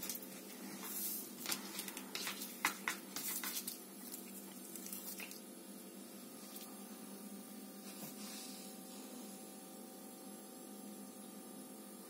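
A cat batting a dry ear of wheat around on a smooth floor: a cluster of short scratches, taps and rustles over the first four seconds, with a few fainter ones later.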